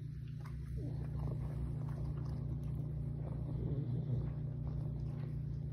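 Steady low hum, with a pug's faint breathing and snuffling over it as it holds a dog biscuit in its mouth.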